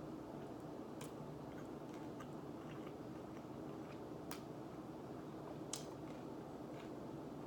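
A person chewing pizza close to the microphone, with small wet mouth clicks and three sharper clicks over a steady low background hum.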